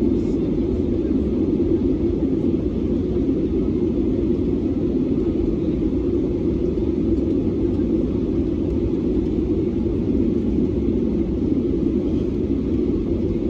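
Steady low rumble inside the cabin of an Airbus A320neo in flight: engine and airflow noise from its CFM LEAP-1A engines, heard from a window seat behind the wing.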